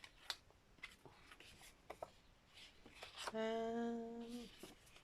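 Light clicks and taps of craft materials being handled, then a woman's held, steady 'hmm' about three seconds in, lasting just over a second.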